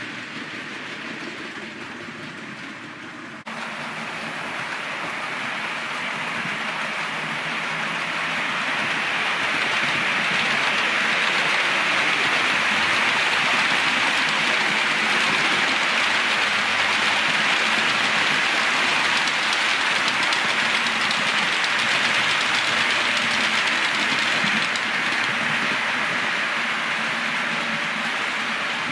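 4 mm scale model of a green Southern Region electric multiple unit running past on the layout track: a steady rushing wheel-and-rail noise that jumps up about three and a half seconds in, builds to its loudest through the middle and eases off near the end.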